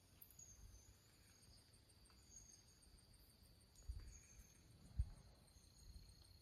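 Faint crickets trilling steadily in the forest at night, with two short, dull low thumps about four and five seconds in.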